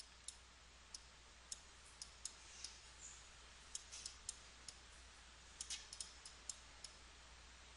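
Faint computer mouse clicks, about fifteen at an irregular pace, over quiet room tone with a low steady hum.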